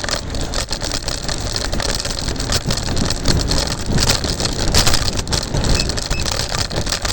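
Rolling electric scooter: wind buffeting the microphone over road rumble, with a steady run of small rattles and knocks.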